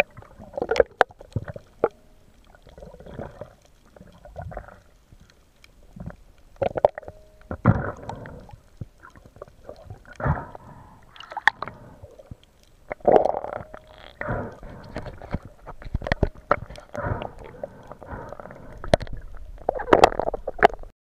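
Underwater camera audio: irregular bursts of gurgling water and bubbles every second or so, mixed with sharp clicks and knocks.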